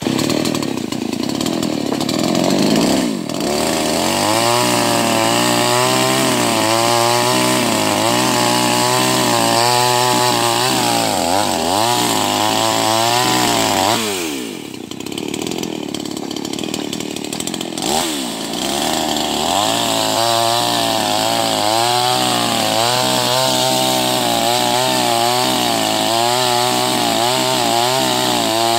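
Chainsaw running hard as it cuts into an agarwood tree, its engine pitch wavering with the load. The revs fall away for a few seconds a little past the middle, then rise again as the cutting resumes.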